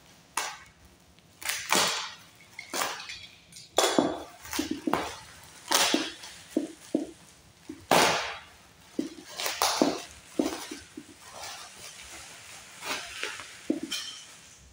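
Black plastic parcel wrapping being slit with a cutter and torn off by hand: irregular crinkling, rustling and tearing of the plastic.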